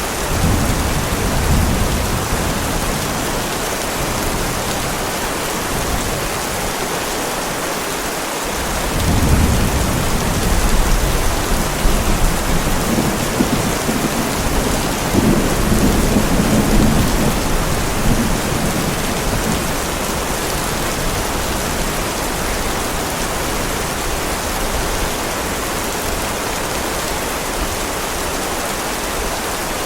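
Heavy, steady rain with thunder rumbling twice: briefly right at the start, then a longer, louder roll of thunder from about nine seconds in that fades out around a third of the way from the end.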